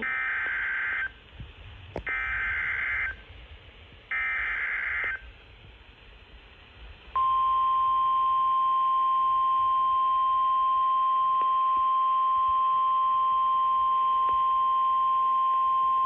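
NOAA Weather Radio Emergency Alert System warning played through a weather radio's speaker. Three short, buzzy bursts of SAME digital header data, each about a second long, come first. About seven seconds in, a steady single-pitch warning alarm tone starts and holds for about nine seconds, signalling that a warning broadcast is about to begin.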